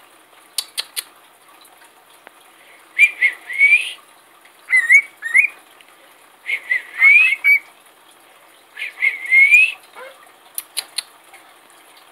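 Cockatiel whistling the same short rising phrase about four times, every two to three seconds, with a few sharp clicks in between.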